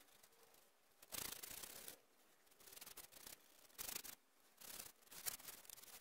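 Paintbrush stroking water-based varnish onto grooved wooden decking boards: about five soft, scratchy brush strokes, roughly one a second, starting about a second in.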